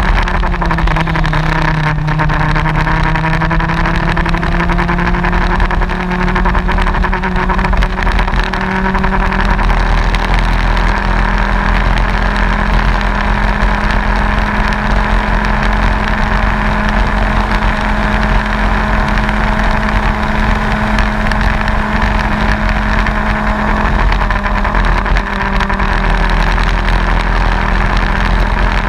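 Racing kart engine running hard, heard on board: its note drops about a second in, then climbs slowly and steadily for several seconds and holds high, with a brief slight dip later on. Wind and tyre noise rush underneath throughout.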